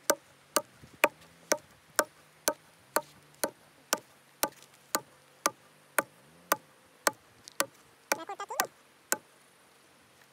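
Small hatchet chopping into a driftwood log: sharp wooden strikes at a steady pace of about two a second, with a quicker flurry of blows near the end before the chopping stops.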